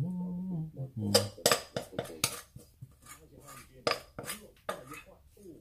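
A spoon knocking and scraping against a glass mixing bowl, scraping sticky bread dough out onto a wooden board, with about ten sharp clinks and knocks.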